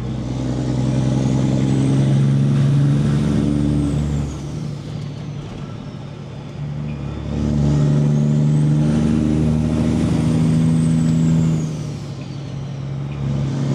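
Peterbilt 389 semi truck's diesel engine pulling hard under load, heard from inside the cab, with a high turbo whistle that rises and then falls each time it pulls. It comes on strong twice and eases off about four seconds in and again near the end, as the driver works up through the gears.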